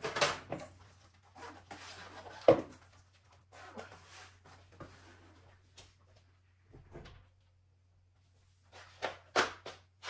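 Household handling noises: light knocks, clicks and rustling as objects are moved about, with a sharp knock about two and a half seconds in and a quick flurry of knocks near the end, over a faint steady low hum.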